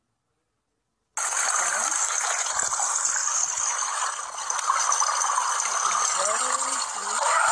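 Steady rushing, gushing water noise from a swimming pool, starting suddenly about a second in after silence, with a voice coming in faintly near the end.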